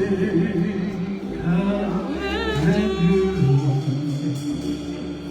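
Slow gospel worship song: voices singing long held notes that waver in pitch, over a steady low accompaniment.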